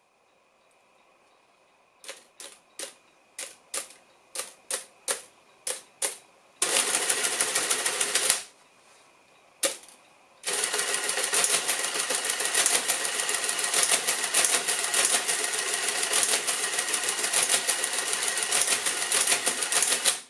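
Madas Model 20LZVG electromechanical calculator being worked. First come about ten separate key clicks, roughly two a second. Then the motor-driven mechanism runs with a rapid mechanical clatter for about two seconds, gives one more click, and runs again in a long steady clatter for about ten seconds before stopping.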